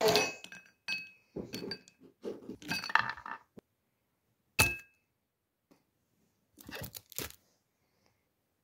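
Porcelain serving dishes clinking as nuts and wrapped sweets are dropped into them and handled: a run of knocks and clinks, then one sharp, ringing clink about four and a half seconds in, and a few softer knocks near the end.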